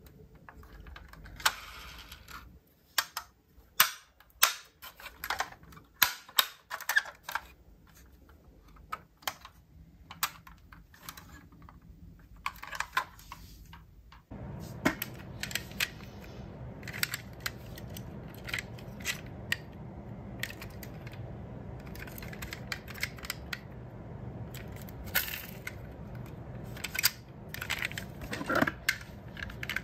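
Sharp clicks and clacks of diecast metal model cars being handled: small opening parts snapping and metal cars knocking together. About halfway through, a steady low hum comes in under the clicking, which turns into clinking as the cars are moved about in a cardboard box.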